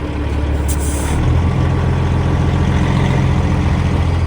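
Heavy diesel truck engine running steadily, stepping up in level and pitch about a second in, with a short hiss of air near the start.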